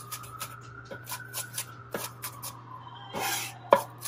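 Chef's knife finely chopping diced carrot, celery and shallot on a wooden cutting board: quick knife strikes on the board, about three to four a second. A brief rasp comes about three seconds in, and the loudest strike follows just after it.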